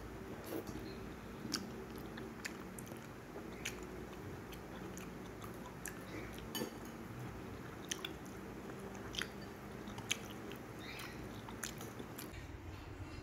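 A person eating noodles, chewing with irregular small sharp clicks and smacks, over a faint steady hum.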